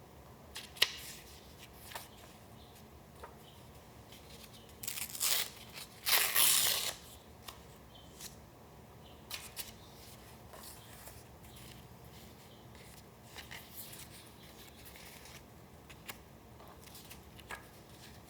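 Paper being torn and handled. A sharp click comes about a second in. Two short rustling tears follow around five and six seconds in, the second longer and louder. After that there are faint scattered rustles and taps.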